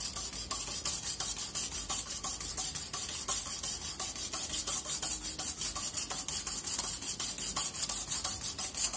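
A hand whisk beating curd in a glass bowl: quick, even strokes of wet swishing and rubbing against the glass, several a second.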